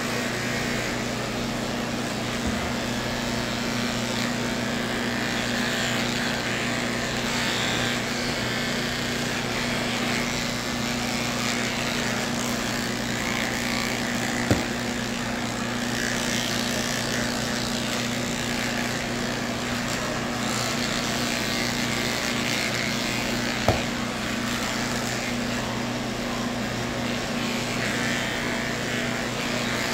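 Cordless electric pet clippers running with a steady hum as they shave a matted cat's coat. Two sharp clicks, one about halfway through and one later.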